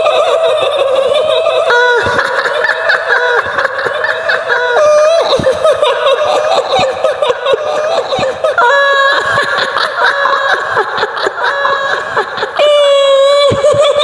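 High-pitched woman's voice giving a long, wavering laugh that shifts in pitch without a pause: the shrill laugh of the kuntilanak, the female ghost of Indonesian folklore.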